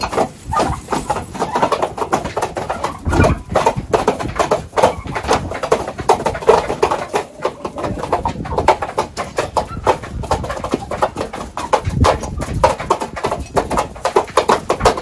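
Domestic turkeys and chickens clucking and calling as they feed, with many quick clicks throughout. Two brief low rumbles of wind on the microphone come about three seconds in and near twelve seconds.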